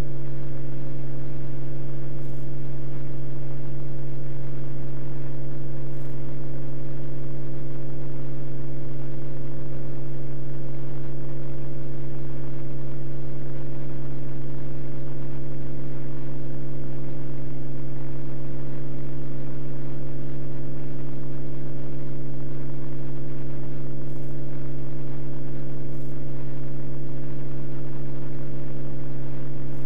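Beechcraft Bonanza F33's six-cylinder piston engine and propeller running steadily at climb power, a constant low drone.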